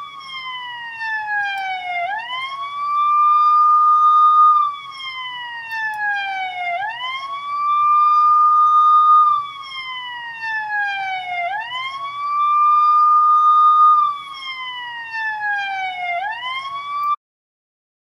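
Police siren in a slow wail. Each cycle holds a high tone for about two seconds, slides down over about two seconds, then sweeps quickly back up, repeating about every four to five seconds. It cuts off suddenly near the end.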